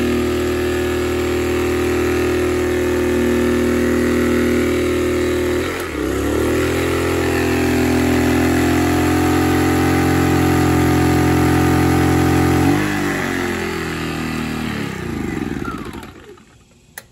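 Sportsman 1000-watt inverter generator's small single-cylinder engine running steadily under the load of an oil-filled space heater. About six seconds in it dips and picks up to a higher speed. About thirteen seconds in its pitch falls away and it winds down to a stop, unable to keep carrying the heater.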